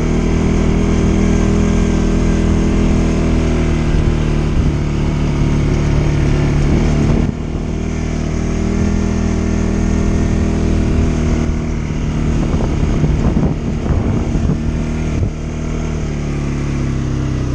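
CFMoto CForce 550 ATV's single-cylinder engine running steadily under throttle on a rough dirt trail. The engine eases off suddenly about seven seconds in and again near the end. In the second half it is mixed with clattering over bumps.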